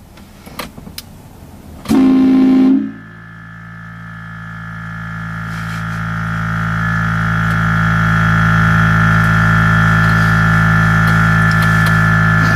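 Train horn mounted on a truck: a short blast about two seconds in, then a long held blast of several tones sounding together, growing louder and staying on.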